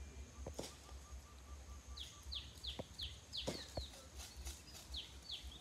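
A bird calling with a series of short, quickly falling high chirps, about three a second, starting about two seconds in, over a low steady rumble. A few light clicks come in between.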